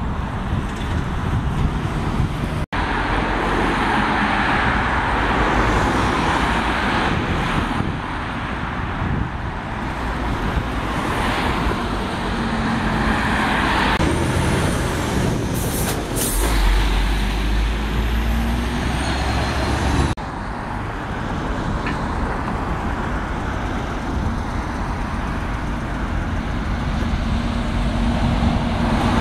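Road traffic passing, with double-decker buses running by, broken into three stretches by two sudden cuts. A short hiss about sixteen seconds in, then a few seconds of wind rumble on the microphone.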